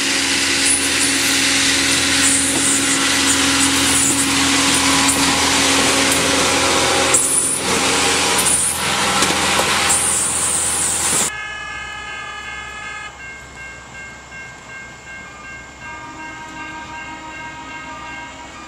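Self-propelled CSX maintenance-of-way track machines passing close by on the rails: loud diesel engine running, with a few short bursts of hiss. About eleven seconds in the sound drops suddenly to a quieter, more distant machine, with several steady high tones.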